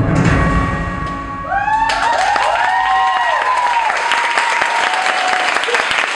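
The song's last low note fades out, then an audience bursts into applause with whoops and cheers from about two seconds in.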